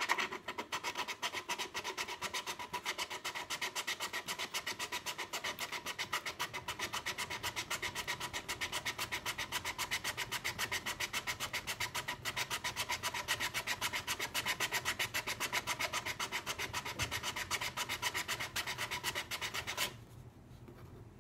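Hand file rasping back and forth on a part of a VFC gas blowback airsoft magazine, in quick, even strokes that stop about 20 seconds in. The part is being thinned so it no longer presses in and makes the magazine leak gas at the magazine-catch slot.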